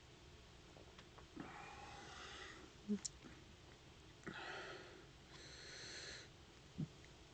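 Faint breathing: three soft breaths, about a second and a half in, about four seconds in and about five and a half seconds in, with a few small clicks between them.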